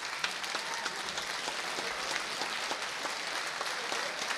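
Crowd applauding: many hands clapping densely and steadily.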